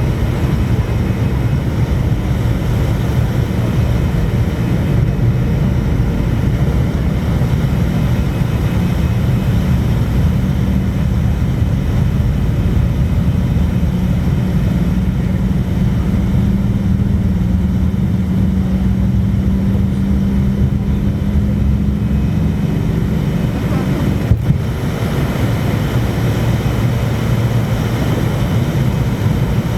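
Cabin noise of a Fokker 100 airliner during takeoff and climb: the steady rush of its rear-mounted Rolls-Royce Tay turbofans and airflow, with a low hum that rises slightly in pitch. The noise dips briefly about twenty-four seconds in.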